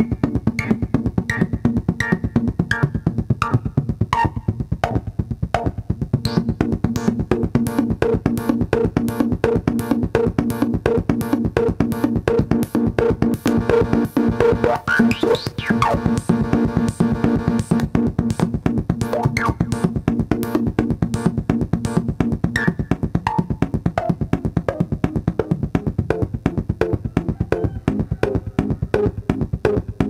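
Modular synthesizer played through a homemade Steiner-Parker-type voltage-controlled filter: a fast, very percussive repeating sequence of short pitched hits over a steady low tone. The filter cutoff is swept by hand, giving resonant whistling glides that fall in the first few seconds and rise and fall again about halfway through.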